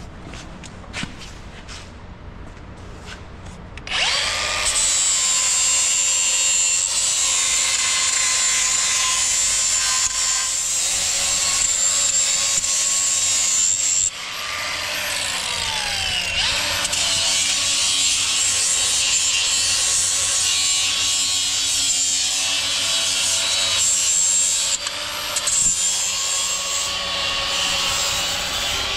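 Angle grinder running against the steel skirt of a concrete pump hopper, a steady high whine under load that starts about four seconds in. It drops out briefly about halfway through and then carries on. The first seconds hold only a few light knocks.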